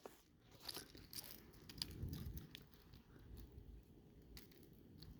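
Faint small clicks and scrapes of a metal split ring on a fishing lure being worked with a prying tool, with near silence in between.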